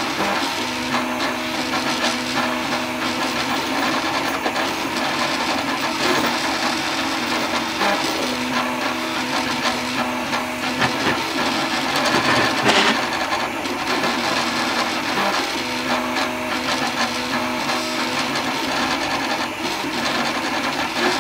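3D printer running a print: its stepper motors whir in short tones that shift in pitch and start and stop as the print head and bed move, over the steady hiss of the cooling fans.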